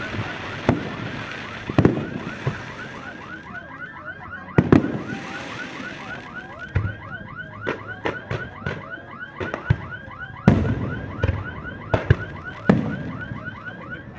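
Aerial fireworks shells bursting overhead with sharp bangs every second or two. Under them an electronic alarm warbles in a fast, even repeating pattern and stops near the end.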